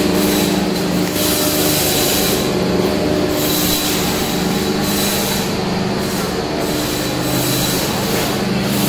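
Factory machinery running steadily: a loud, unbroken mechanical hum with a faint high whine over a rushing, grinding noise.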